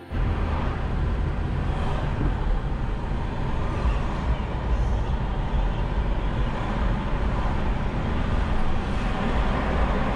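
Steady road noise of a car driving through city traffic, with a low rumble throughout.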